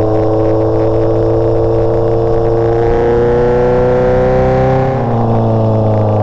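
Motorcycle engine pulling steadily through a gear, its pitch rising slowly as the bike accelerates, then easing off slightly about five seconds in.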